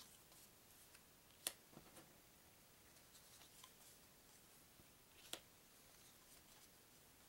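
Thin game cards being taken one at a time off a deck on a wooden tabletop: a sharp card snap about a second and a half in and another about five seconds in, with faint paper ticks between and near silence otherwise.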